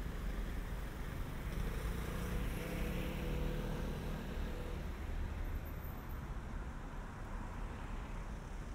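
Street traffic at a town junction: cars and a motor scooter passing, with a low rumble throughout. A passing engine's hum swells from about two seconds in and fades after about five seconds.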